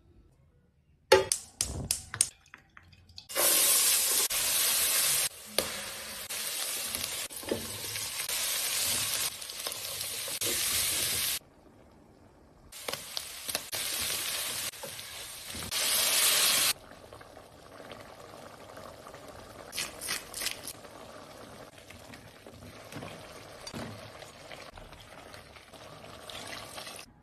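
Meat and green peppers sizzling in oil in a metal pot as a plastic spatula stirs them. The loud sizzle starts and stops abruptly several times. A few sharp clicks come before it, and near the end it gives way to a quieter bubbling with light taps.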